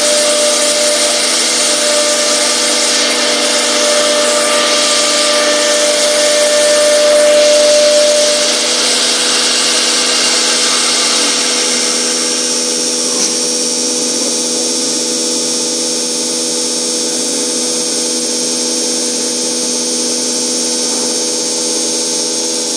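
CNC router cutting and drilling center machining furniture panel board, its spindle running with a steady whine and hiss of cutting. About eight seconds in, one high tone drops out, and around twelve seconds in the hissing eases while the machine keeps running.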